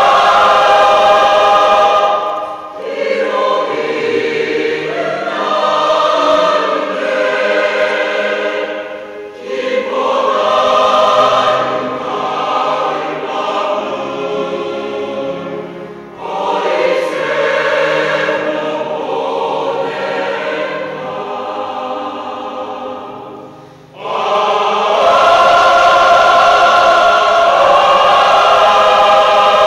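Mixed choir of men and women singing. It is full and loud at first, drops to a softer passage sung in phrases of several seconds, then comes in suddenly loud again near the end.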